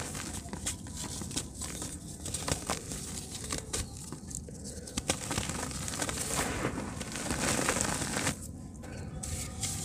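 Hands squeezing and crumbling soft, dry dirt clods, with many small crackles and clicks as the lumps break apart and a soft hiss as the powdery soil sifts through the fingers. A longer run of the sifting hiss comes about two-thirds of the way in, as a handful pours out.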